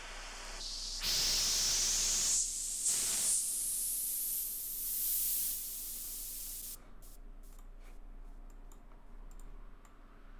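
Synthesized white noise through a filter that sweeps upward, a rising hiss used as a riser, which cuts off suddenly about two-thirds of the way through. A few faint clicks follow.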